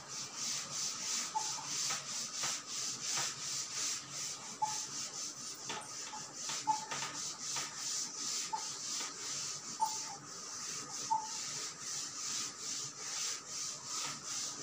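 Blackboard duster scrubbed back and forth over a chalkboard, wiping off chalk writing in a steady run of rubbing strokes, about two a second.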